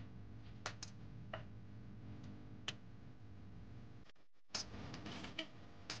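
A handful of faint, scattered clicks over a low steady hum, from a rosy-faced lovebird shifting about on neem twigs.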